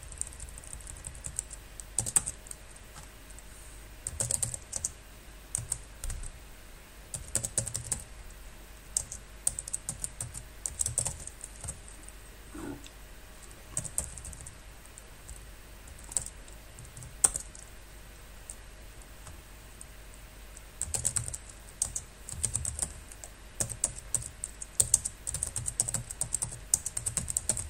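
Typing on a computer keyboard: runs of quick keystrokes broken by pauses, over a faint steady low hum.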